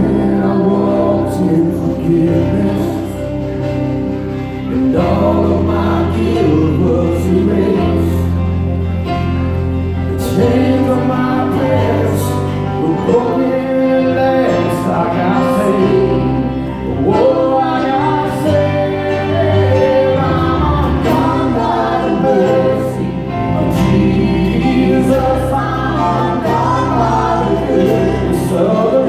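Live gospel song: a church worship team singing into microphones, men's and women's voices together, backed by keyboard, guitar and drums with regular drum and cymbal hits.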